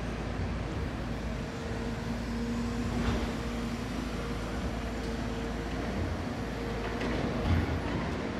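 Heavy diesel machinery at work: a Caterpillar 340F long-reach excavator's engine and hydraulics running steadily with a low rumble. A steady hum comes in about a second and a half in and fades out around six seconds. There are a couple of short knocks, one around three seconds in and another near the end.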